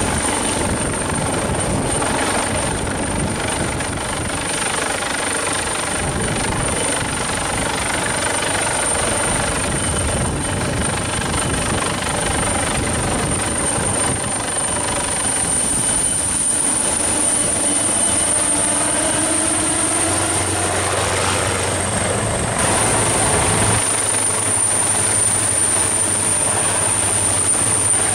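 AgustaWestland AW139 twin-turboshaft helicopter hovering low overhead: steady, loud rotor and engine noise with a high whine.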